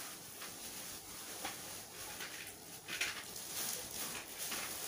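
Faint rustling and a few light knocks from items being handled out of frame, over a steady background hiss.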